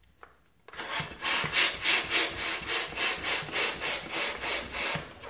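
Hand balloon pump inflating a round latex balloon: rapid pumping strokes, each a rasping rush of air, about five a second, starting about a second in and stopping just before the end.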